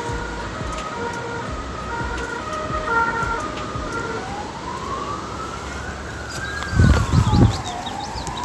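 A simple melody of held notes, then a single tone gliding slowly up, down and up again like a wailing siren. A few loud low thumps come about seven seconds in.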